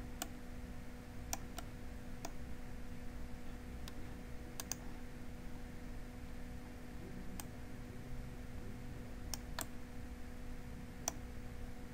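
Computer mouse buttons clicking now and then, about a dozen sharp clicks, some in quick pairs, over a faint steady hum.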